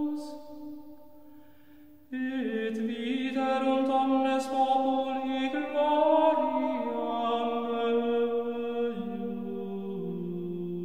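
Slow soundtrack music of long, held, chant-like notes. A chord fades out over the first two seconds, a fuller chord enters suddenly about two seconds in, and the lowest note steps down twice near the end.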